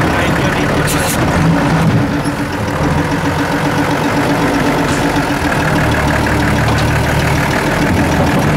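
Mercedes-Benz Unimog's diesel engine running steadily at low revs as the truck crawls over rocks.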